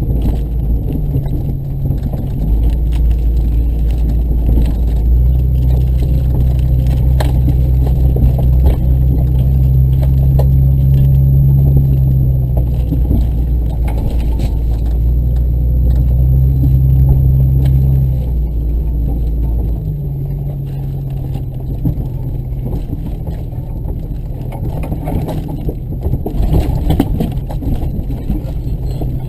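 Off-road vehicle driving with its engine running as a low, steady drone that grows louder about two seconds in and eases off past the middle, with scattered knocks and rattles throughout.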